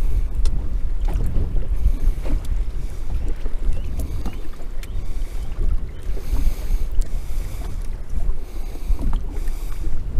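Gusty wind buffeting the microphone on an open fishing boat, a strong uneven rumble, with a couple of hissing washes of water against the hull after the middle and a few faint clicks.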